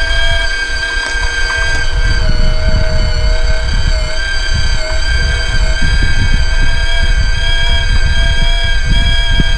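Lincoln flux-core MIG welder's wire-feed motor running with the gun trigger held, pushing new wire through the liner to the tip. It makes a steady whine, over a constant low rumble.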